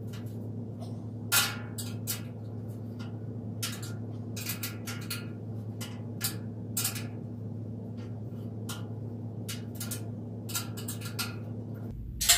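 Irregular light metal clinks and taps from the parts of a metal mesh rolling cart being handled and fitted together during assembly, one sharper knock about a second and a half in, over a steady low hum.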